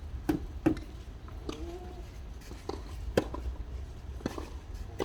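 A doubles tennis rally: sharp pops of tennis balls struck by rackets and bouncing on the court, about seven in all at uneven intervals, over a steady low rumble.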